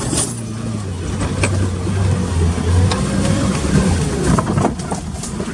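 Car engine running under load at low revs as the car makes a second attempt to get through on a rough track. The hum eases off about halfway through, with a few scattered knocks.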